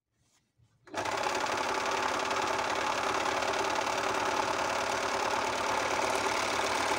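Juki MO-50e overlock (serger) starting about a second in and sewing steadily at a fast run through fabric, then stopping. This is a test run after its broken stitch finger was replaced.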